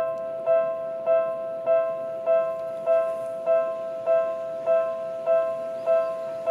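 Electronic level-crossing warning bell ringing with a steady clang, about 1.7 strikes a second, each strike the same bell-like tone, signalling an approaching train.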